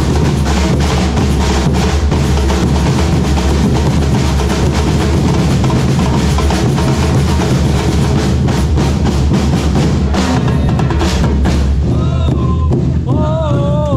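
Supporters' bateria playing a fast, steady samba-style rhythm, with heavy surdo bass drums struck with mallets and snare-like drums on top. Near the end the higher drums drop away and a raised voice is heard over the continuing bass drums.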